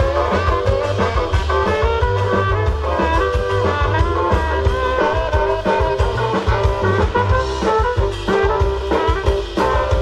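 Live swing band playing an instrumental passage, with a horn melody of saxophone, trumpet and trombone over upright double bass, electric guitar and drums keeping a steady beat.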